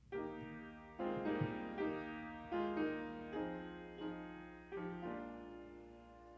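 Piano playing the introduction to a hymn: chords struck one after another, each left to ring and fade.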